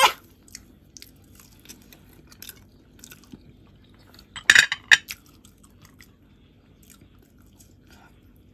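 Eating sounds: fingers handling soft boiled saba banana and sweet potato, and chewing. There are scattered small clicks, with two louder sharp clicks about four and a half and five seconds in.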